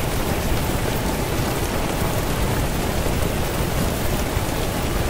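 Steady rain-like noise: an even, dense hiss with a low rumble beneath it.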